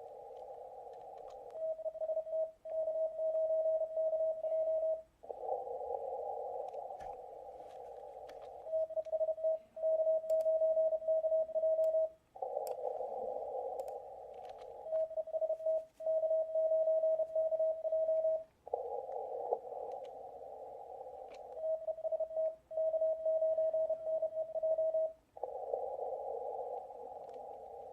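A Morse code (CW) transmission sidetone, a single steady tone keyed in dotted runs of about three and a half seconds. Each run alternates with about three seconds of band hiss from a shortwave receiver's narrow CW filter. The same call repeats four times, the pattern of a station calling CQ and then listening for replies.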